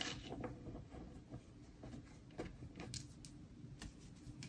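Faint, scattered light clicks and taps, a handful of them irregularly spaced, over a low steady room hum.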